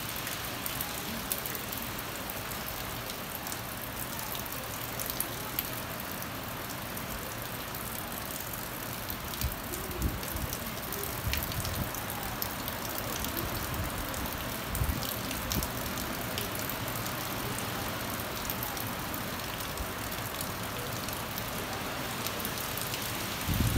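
Steady rain from a hurricane falling on trees and foliage, with a few brief low thumps about ten and fifteen seconds in.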